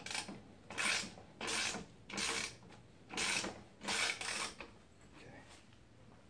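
Hand ratchet wrench being worked back and forth to tighten a fastener, clicking in about six strokes and stopping about four and a half seconds in.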